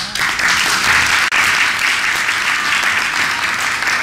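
A roomful of people applauding steadily, dense clapping that holds through and begins to fade just after; the sound cuts out for a split second about a second in.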